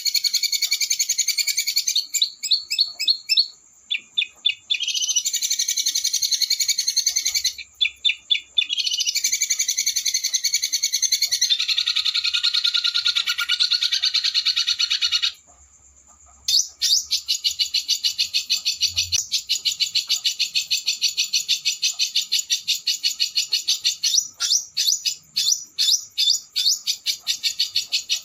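Small songbirds giving rapid, high-pitched rolling trills and harsh, fast-repeated chattering notes, in long runs broken by brief pauses. A longer gap falls just past the middle, after which the notes come as a quick, even stutter. This is the fast, harsh 'roll speed' style of song used to train white-rumped shamas.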